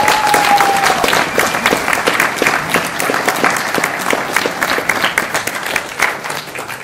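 Audience applauding, the clapping thinning out and fading near the end. A held musical note dies away about a second in.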